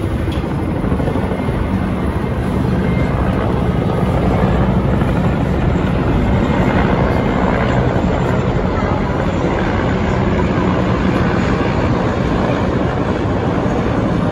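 Military helicopters flying overhead in formation, a tandem-rotor CH-47 Chinook among single-rotor helicopters: a steady, low rotor beat and turbine drone that grows a little louder after a few seconds.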